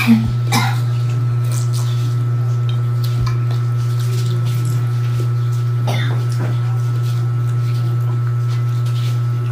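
A person eating with their hands: a few short mouth clicks and smacks of chewing, over a steady low hum.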